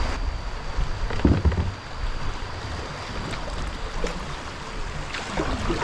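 Steady rush of river water with wind buffeting the microphone, and a low thump a little over a second in.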